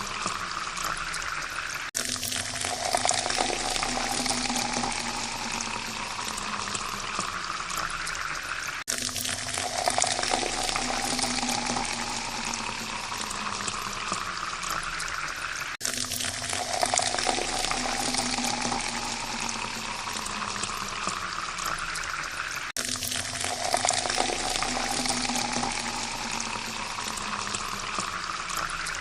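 Water pouring steadily into a glass, splashing, with a tone that rises in pitch as the glass fills. The pour cuts off briefly and starts again from a low pitch about every seven seconds, as a repeating loop.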